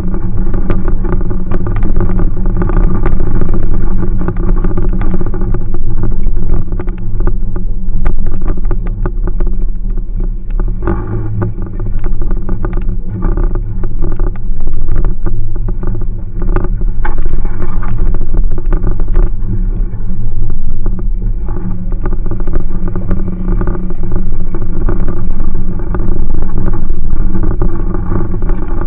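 Jeep Cherokee engine running, heard from inside the cab while driving a rough dirt trail. Its level rises and falls every few seconds, with frequent rattles and knocks as the vehicle jolts over bumps.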